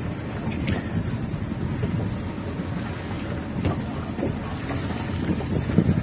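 Fishing boat's engine running at idle, a steady low rumble, with two sharp clicks about a second in and a few seconds later.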